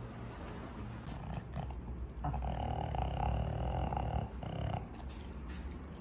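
Pug breathing noisily and snuffling through its short, flat nose while sniffing, loudest from about two to four seconds in.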